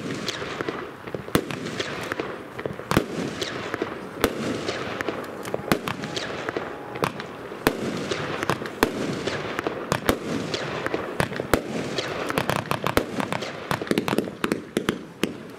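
Weco Sonic Boom consumer firework battery firing: a long run of sharp shots and bursts with a steady hiss between them. The shots come thicker and faster near the end.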